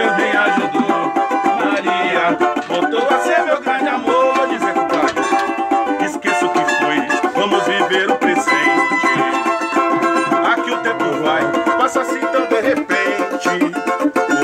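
Cavaquinho and samba banjo strumming a samba together in a steady, unbroken rhythm: an instrumental passage between sung verses.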